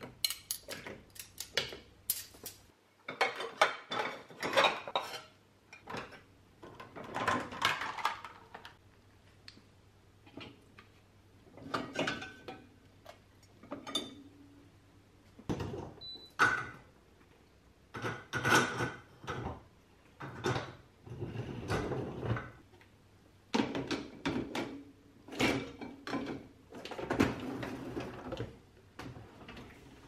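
Clean dishes, glass containers and cutlery clinking and knocking as a dishwasher's wire racks are unloaded, in short clusters every few seconds.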